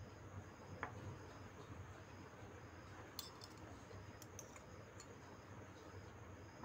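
Quiet room tone with a low hum, broken by a few faint light clicks of a tiny steel spoon touching a small brass bowl and steel plate as noodles are lifted. The clicks come about three seconds in and again about a second later.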